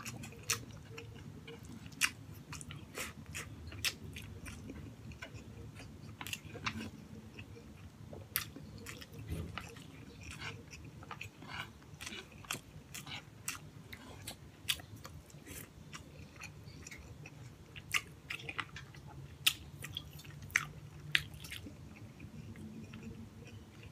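Close-miked chewing of braised pork hock (paksiw na pata) and rice, with many small sharp mouth clicks scattered throughout.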